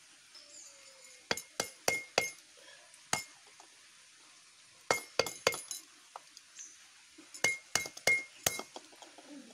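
Sharp clinks of a metal tool striking the inside of a dry coconut shell, in quick clusters of three to five with pauses between, as a hole is worked through the shell.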